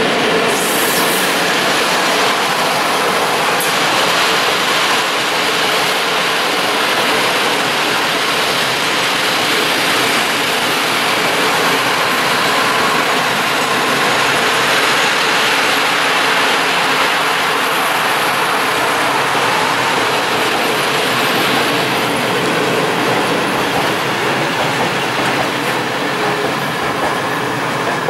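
Freight train of open coal wagons rolling past: a steady, loud rolling noise of wagon wheels on the rails, easing slightly near the end as the last wagons go by.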